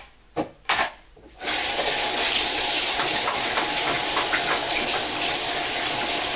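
A couple of brief faint knocks, then a bathroom faucet turned on about a second and a half in, water running steadily into the washbasin while it is being cleaned.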